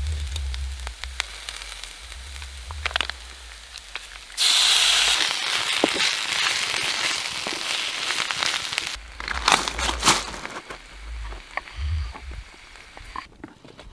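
Fajita filling frying in a pan on a small camp stove. It sizzles, loud and hissing from about four seconds in, and a wooden spatula scrapes and clicks against the pan as it stirs. Near the end a knife cuts cherry tomatoes on a wooden board.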